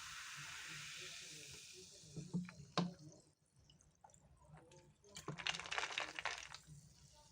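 Inca Kola fizzing over ice in a glass: a steady fizzing hiss that fades over the first two seconds, then two sharp clinks, and a dense crackle of fizz about five seconds in.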